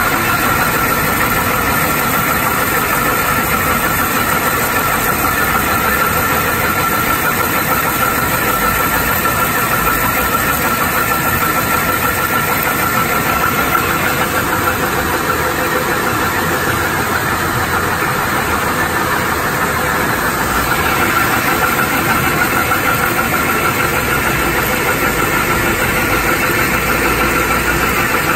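Yongwon SP300 cone crusher running at 1050 rpm, crushing a full feed of gravel: a loud, steady machinery din with a constant high hum running through it.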